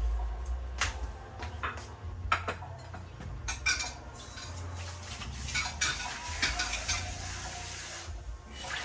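Dishes and utensils clinking and knocking at a kitchen sink, with tap water running for a few seconds from about four seconds in.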